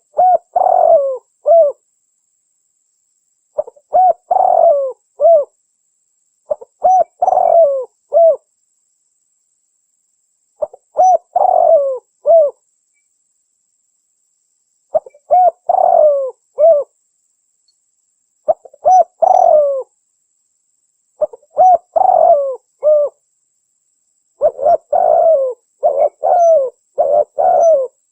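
Spotted dove (Spilopelia chinensis) cooing: short phrases of a few coo notes repeated about every three to four seconds, coming faster and closer together near the end.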